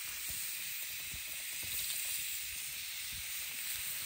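Ribeye steak and sourdough bread sizzling steadily in oil on a hot cast iron camp griddle.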